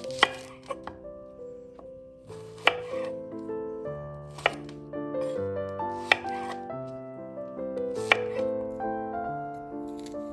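Knife chopping on a cutting board, a sharp knock about every two seconds with a few lighter taps, over gentle piano background music.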